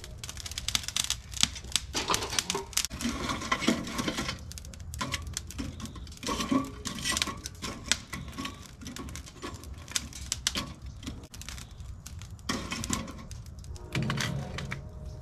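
Lump charcoal clinking and rattling as it is tipped from a chimney starter into a steel smoker firebox, followed by metal tongs scraping and clacking as the hot coals are spread and small wood splits are set on them. Irregular clicks and knocks throughout.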